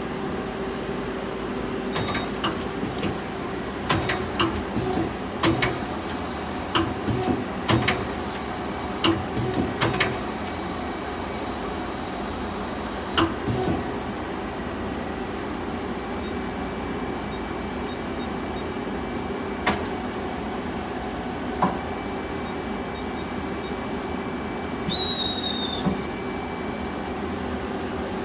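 Okuma ES-L10 CNC turning center running with a steady machine hum, broken in the first half by a run of sharp clicks and clunks and a brief hiss. A short high tone sounds near the end.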